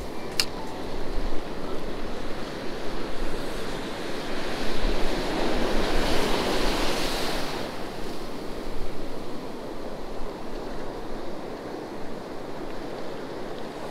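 Ocean surf washing onto a beach, with wind on the microphone; a wave breaks and swells louder about five to seven seconds in. A single sharp click sounds just after the start.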